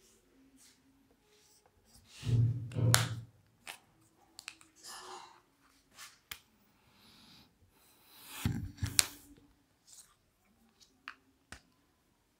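Handling noise at a whiteboard: scattered sharp clicks of marker caps, two louder rustling thumps about two and eight seconds in, and stretches of a felt-tip marker scraping across the board.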